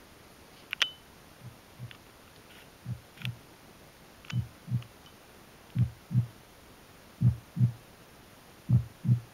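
Nakamichi SoundSpace 5 speakers playing the opening of a CD track: a heartbeat-like double thump about every second and a half, growing steadily louder as the volume is turned up. A few faint clicks come in the first half.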